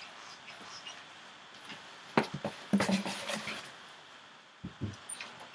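Books being handled: knocks and rustling as a paperback is set aside and a picture book is picked up, with a sharp click about two seconds in and two soft thumps near the end.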